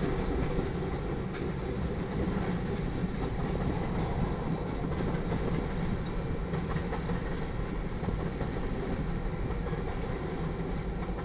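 Freight train of tank cars rolling past, a steady rumble of steel wheels on the rails.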